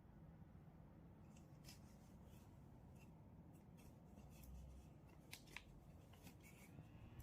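Near silence, with faint scattered clicks and light rustles of something being handled.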